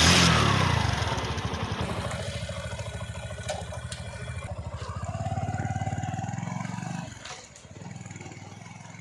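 Heavy diesel machinery engine running with an even, rapid firing beat. It opens with a loud crash that fades over about a second and a half. The engine note swells a little after the fifth second and falls back about seven seconds in.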